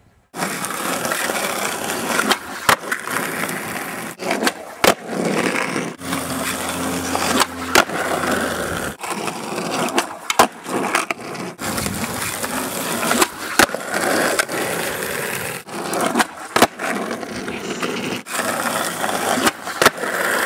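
Skateboard rolling on asphalt, with repeated sharp clacks of the tail popping and the board landing as flip tricks are tried.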